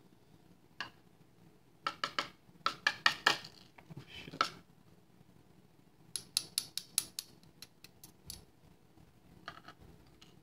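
Small metal clicks and clinks of padlock parts and a hand tool being handled while gutting an American Lock 1105 padlock. There is one click just under a second in, a quick cluster of taps about two seconds in, another about six seconds in, and a few fainter ticks near the end.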